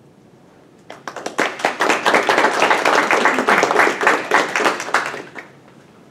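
A small group of people clapping, starting about a second in and stopping after about four and a half seconds.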